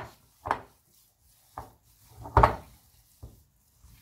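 Hands squeezing and kneading a thick, oily muhammara paste in a glass bowl: four separate squishes, the loudest about halfway through.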